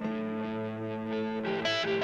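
Electric guitar played through a TC Electronic Flashback X4 delay pedal: a chord struck at the start rings on, and new notes come in about a second and a half in.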